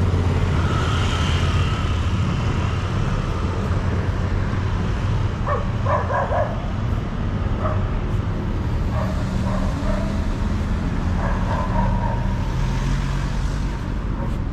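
City street traffic: car engines running at a roundabout, with a dog barking several short times from about five seconds in.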